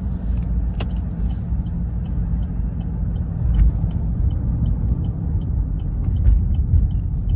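Car cabin road noise: a steady low rumble from the moving car, with a regular light ticking starting about two seconds in, roughly two to three ticks a second.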